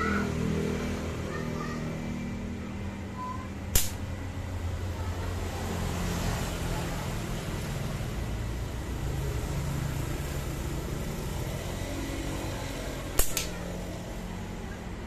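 Homemade tamarind-wood slingshot being shot: two sharp snaps, about nine seconds apart, the second a quick double crack. A steady low engine hum runs underneath.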